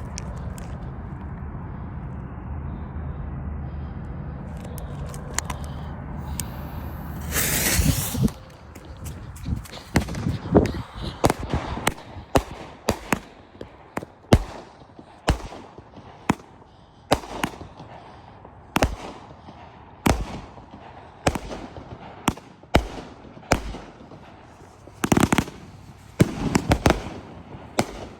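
Homemade angled fireworks cake firing. After a steady low rumble, a loud rushing launch comes about seven seconds in. Sharp bangs follow, roughly one to two a second, closing with a tighter cluster of shots near the end.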